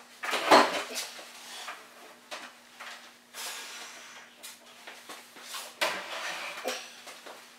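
Heavy wooden workbench top being tipped up onto its edge: a loud wooden knock about half a second in, then stretches of wood scraping and rubbing with scattered lighter knocks as it is shifted upright.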